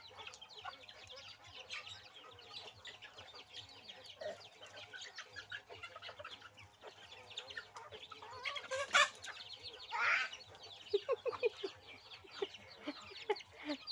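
A flock of chickens clucking and calling on and off, many short calls overlapping. A brief louder noise stands out about nine seconds in, with another just after.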